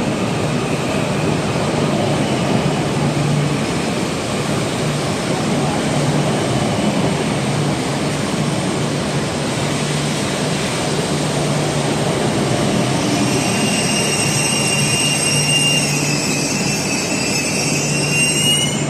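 E6-series Akita Shinkansen train pulling into the platform, with a steady rumble and low hum. About two-thirds of the way in, several high whining tones come in and grow louder toward the end as it slows.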